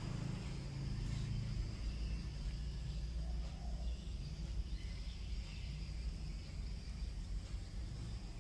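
Steady background ambience: a low rumbling hum with a faint, thin high-pitched whine over it and no distinct events; the brush moving on the paper makes no clear sound.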